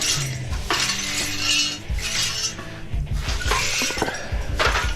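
Background music with held bass notes, over repeated metallic clinking and rustling of loose radiator fin scraps being gathered up.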